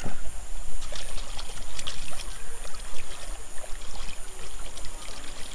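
Hand splashing and swishing in shallow river water while washing a muddy plastic toy, with many small irregular splashes and trickles.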